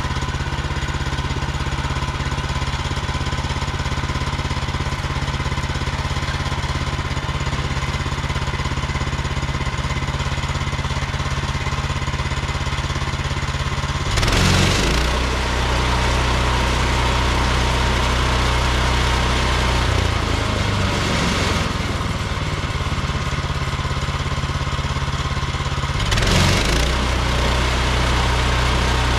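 Portable band sawmill's gas engine running steadily under load. Its note shifts about halfway through, with short noisy surges then and again near the end.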